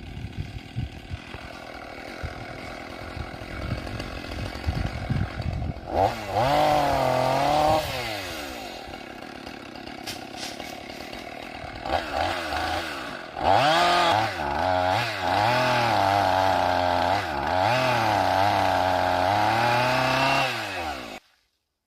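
Gasoline two-stroke chainsaw idling with uneven popping. It then revs up and wavers in pitch under load as it cuts into oak logs: briefly about six seconds in, and again in a long cut from about thirteen seconds. The sound stops abruptly near the end.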